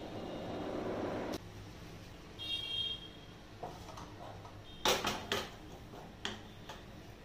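Rasam bubbling at the boil in a steel pot, cut off after about a second and a half; then a small metal tempering pan is set down on the gas stove's steel grate, a few sharp metal knocks about five seconds in, followed by lighter clicks.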